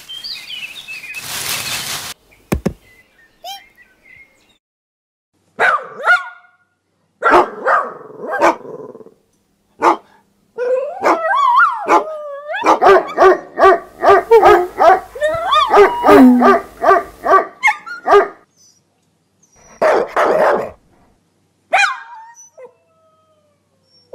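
Small dogs barking and yapping in bursts, with a long run of rapid barks in the middle and a few whimpers. There is a short burst of rushing noise about a second in.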